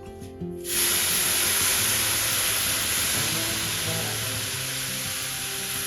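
Food sizzling in a hot pan: a loud, steady hiss that starts suddenly about a second in, under soft background music.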